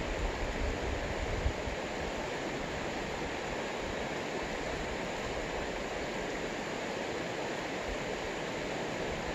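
Steady rush of a shallow river flowing over a stony bed.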